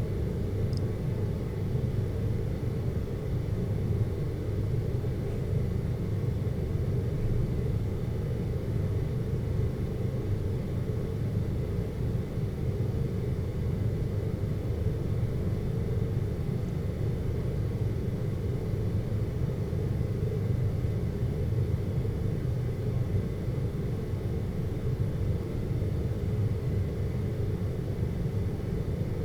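Steady low rumbling hum, an even noise with most of its weight in the bass and nothing changing through it, of the kind used as a sleep noise blocker.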